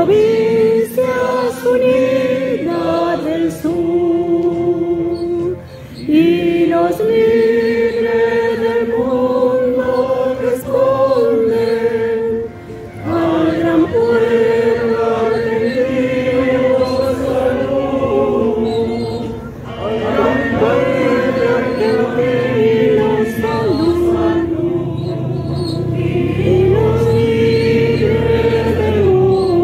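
A crowd singing together in unison: phrases of long held notes with short breaks between them.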